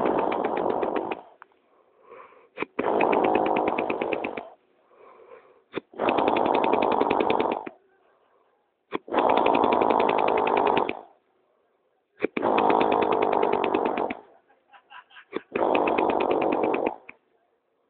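A person snoring loudly: a harsh rattling snore about every three seconds, six in all, each lasting a second or two, with faint breathing between.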